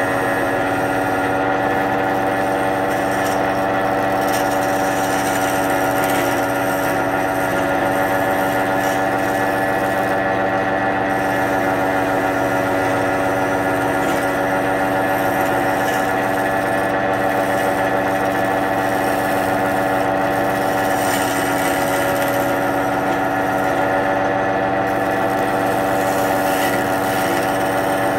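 Wood lathe running with a steady motor hum while a hand-held gouge cuts the spinning wooden mortar blank, adding an irregular scraping hiss of shavings coming off.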